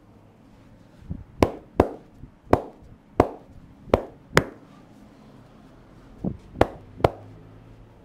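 Hands striking during an Indian head massage: about ten sharp slaps, several coming in quick pairs, with a pause near the middle.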